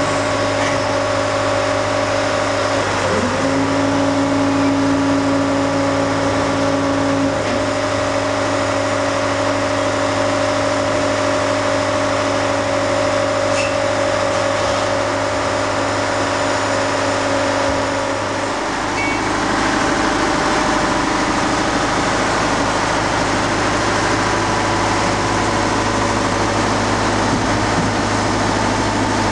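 A large engine running steadily with a constant hum. Its pitch dips briefly about three seconds in, and the sound shifts to a rougher, noisier running about eighteen seconds in.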